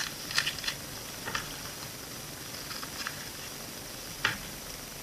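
Packaging being handled and opened by hand: a few scattered short clicks and crinkles, the sharpest about four seconds in.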